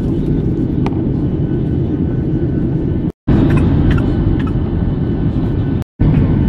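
Jet airliner cabin noise in flight, a steady low rumble of engines and airflow heard from a window seat. The sound cuts out completely twice, briefly, a little after three seconds and near the end.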